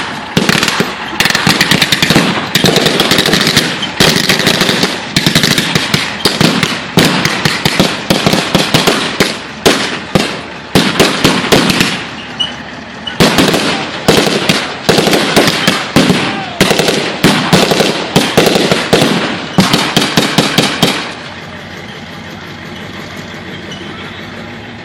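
A long, rapid, irregular run of sharp bangs and cracks, several a second, that stops suddenly about 21 seconds in and leaves a steady low noise.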